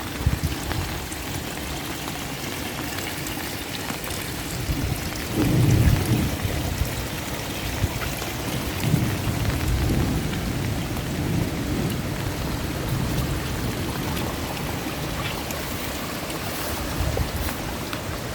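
Steady rain falling, an even hiss throughout, with deep low rumbles swelling up about five seconds in and again around ten seconds.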